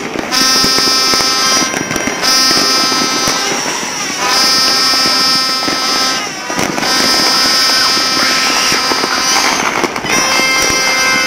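New Year fireworks and firecrackers popping and crackling across a city. Over them, several horns hold loud steady tones together in long blasts of one to three seconds, about five of them, with short breaks between.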